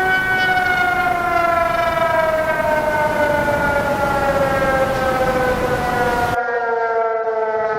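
Outdoor tsunami warning siren sounding one long tone rich in overtones, its pitch falling slowly and steadily throughout as it winds down. About six seconds in the background hiss stops abruptly while the siren tone carries on.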